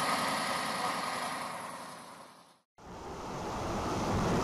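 Steady rushing outdoor noise with a low rumble, fading out to a moment of silence a little past halfway, then fading back in.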